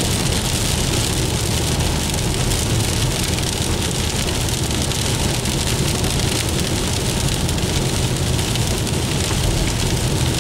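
Heavy rain falling, a steady dense hiss, with a low steady rumble underneath.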